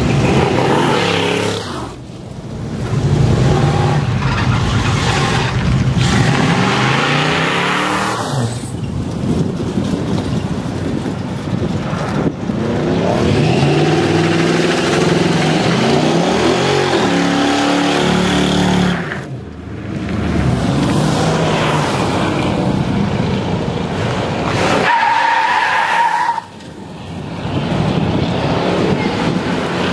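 Classic cars and pickups revving hard and accelerating away one after another, each car's engine rising and falling in pitch, with tyre squeal and skidding from burnouts. The sound dips briefly between passes, about four times.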